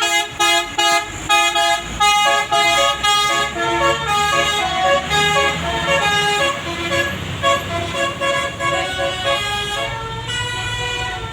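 Basuri musical air horn on a bus playing a 'telolet' melody: a quick run of short, stepped horn notes, choppy for the first few seconds and then longer held notes, over the bus engine's low rumble.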